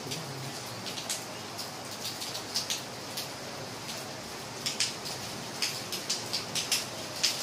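Steady rain falling, a continuous hiss with individual drops tapping sharply and irregularly, in clusters.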